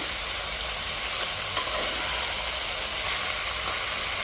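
Chopped vegetables sizzling in hot oil in a pressure cooker, stirred with a spatula. There is a steady hiss with one sharp tap about a second and a half in.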